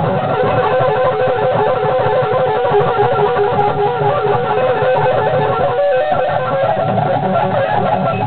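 Electric guitar playing fast picked runs of rapid single notes, over a steady tone that holds throughout. The notes break off briefly about six seconds in.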